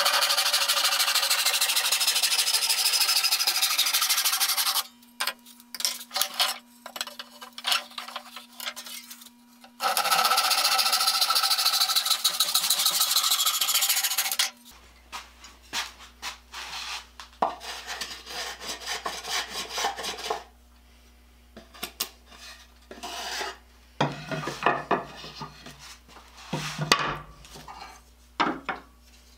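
Hand crosscut saw, a Disston #12, cutting through a pine board in two sped-up runs of rapid strokes, with scattered knocks and clatter of wood and tools being handled between and after them.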